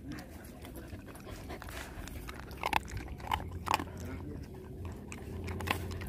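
Puppy eating dry kibble from a stainless steel bowl: crunching as it chews, with sharp clicks of kibble and teeth against the bowl, several close together in the middle.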